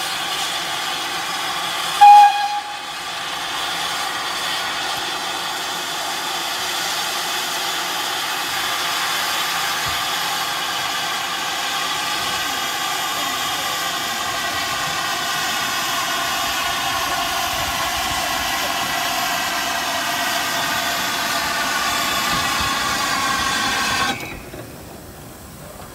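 GWR Saint class 4-6-0 No. 2999 'Lady of Legend' letting off a loud, steady hiss of steam from its open cylinder drain cocks, with one short, sharp whistle toot about two seconds in. The hiss stops abruptly near the end.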